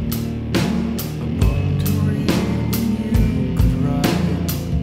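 Background rock music with a drum kit keeping a steady beat, about two hits a second, over held guitar and bass notes.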